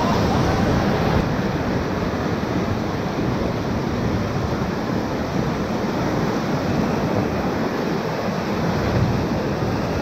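Whitewater rapids rushing loudly and steadily around an inflatable raft as it runs through them.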